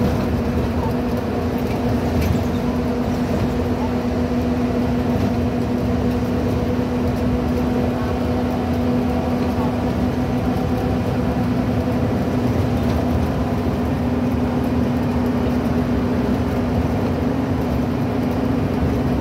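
Interior running noise of a Scania N230UB OmniCity single-deck bus on the move: its five-cylinder diesel engine and road noise at a steady pace, with a steady low hum throughout.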